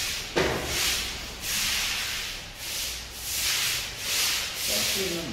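Repeated hissing rubbing or swishing strokes, a little more than one a second, evenly paced.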